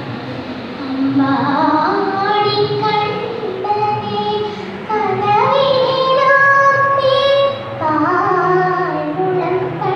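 A young girl singing solo into a microphone, holding long notes that glide from one pitch to the next, with short breaths between phrases.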